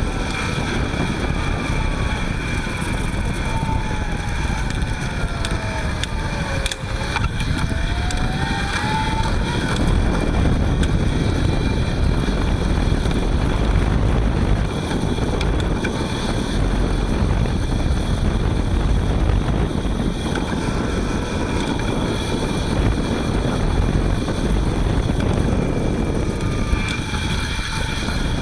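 Front hub motor of a Panasonic ViVi Charge WT electric-assist bicycle running while ridden, with a steady hiss and road noise. About seven seconds in, a motor whine falls in pitch and then rises again. The owner takes the hiss for grease stiffened in the cold inside the hub motor, which goes away once it warms up.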